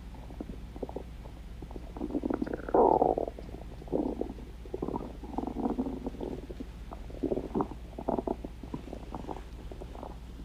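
Stomach growling: irregular waves of gurgling and rumbling with small squelchy clicks, the loudest a drawn-out gurgle about three seconds in, over a steady low hum.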